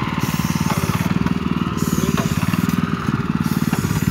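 Small engine on a kerb-painting machine running steadily with a fast, even beat, and a high hiss above it that stops and starts about every second and a half.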